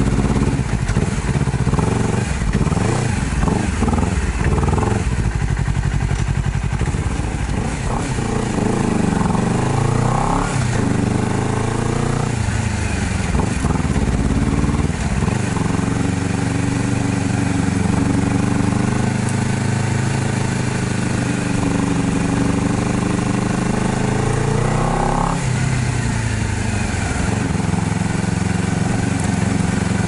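Honda CBR250RR motorcycle engine pulling along on the move, its revs rising and falling with the throttle. A long, steady climb in pitch drops off sharply near the end.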